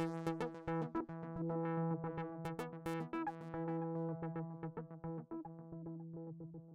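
Eurorack modular synthesizer playing a sustained low tone with many harmonics, with a quick, uneven run of short clicking notes over it. The sound fades out near the end.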